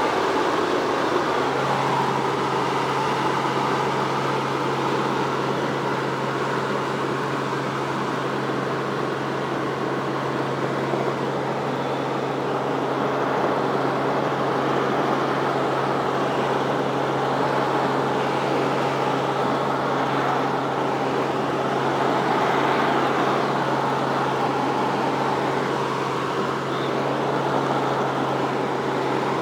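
Helicopter in flight heard from inside the cabin: steady engine and rotor noise, a constant low hum under an even hiss.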